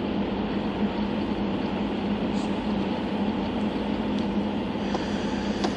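Aircraft engines running steadily, heard from inside the passenger cabin, with a constant low hum.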